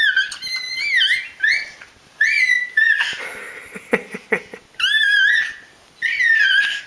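A dog making a run of high-pitched whining, squeaky calls, about six in a row, each bending up and down in pitch, with a few short clicks in the middle.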